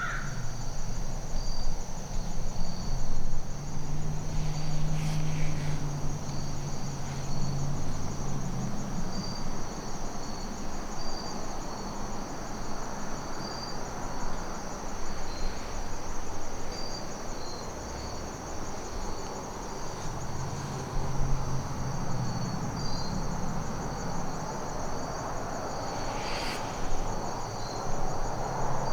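A steady, high-pitched chorus of crickets trilling, with a low hum underneath.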